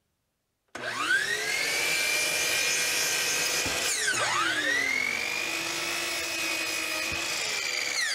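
Hitachi C12RSH 12-inch sliding compound miter saw cutting plywood to length. Its motor whine rises quickly to a steady pitch, and about four seconds in it winds down briefly and spins straight back up for a second cut. It begins to wind down again at the very end.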